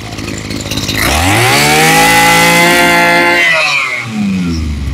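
Maruyama BIG M KC20NX 20cc two-stroke brush cutter engine idling, then revved up to full throttle about a second in, held high for about two and a half seconds, and dropped back to idle. This is a test run of the used machine, which the seller calls very good.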